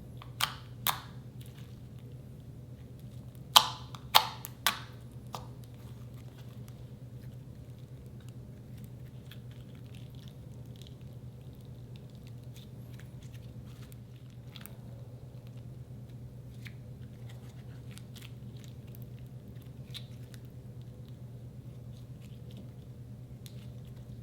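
Slime being handled, with sharp pops and clicks, the loudest a cluster of three about four seconds in, then only faint scattered clicks over a steady low hum.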